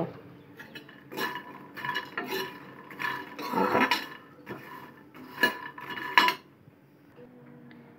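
A steel ladle scraping and clinking against a kadhai as makhana (fox nuts) are stirred and roasted in ghee. The strokes come in irregular bursts with a short metallic ring and stop about six and a half seconds in.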